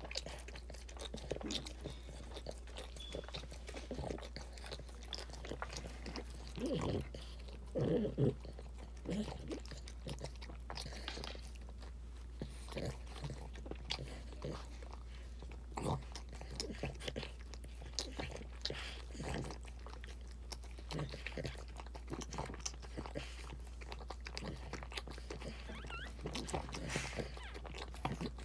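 Boston Terrier mother licking and cleaning her newborn puppies: irregular wet licks and mouth smacks, with two louder bursts about seven and eight seconds in. A steady low hum runs underneath.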